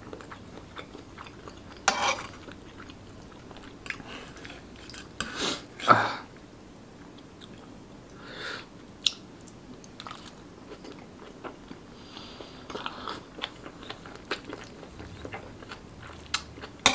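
Close-miked chewing and biting of yong tau foo (fish balls, tofu and greens in sauce), with louder bites about two and six seconds in. Near the end the metal spoon-fork clicks against the tray as the next mouthful is scooped.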